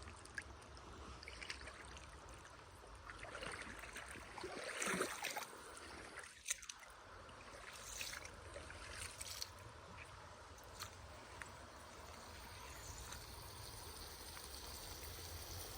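Faint steady rush of flowing water, like a stream, with a few small clicks and a briefly louder stretch about four to five seconds in.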